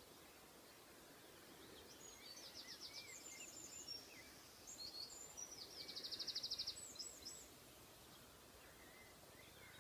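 A small songbird singing: a few high, rapid trilling and chirping phrases from about two seconds in to about seven and a half seconds in, the loudest trill just before the end of the song, over a faint steady outdoor hiss.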